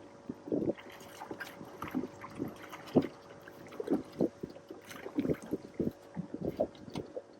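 Water lapping and slapping against a small boat's hull in irregular splashes, with a faint steady hum underneath.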